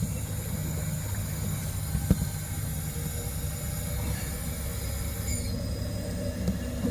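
Compressed air hissing from a shop-air regulator being fed into a diesel engine for a pressure test, over a steady low machine hum. One sharp knock about two seconds in, and the hiss cuts off with a short falling tone about five seconds in.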